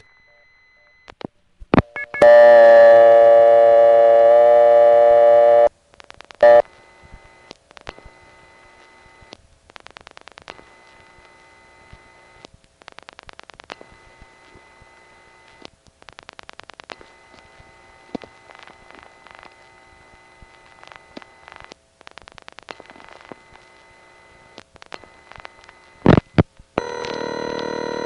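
Telephone line audio from a Laurelton 5 crossbar exchange. A loud steady dial tone lasts about three and a half seconds, followed by a few clicks. Then comes the exchange's faint steady high squeal, with the short repeating buzzes of a background fast busy signal leaking onto the line, and a ringback tone starts near the end.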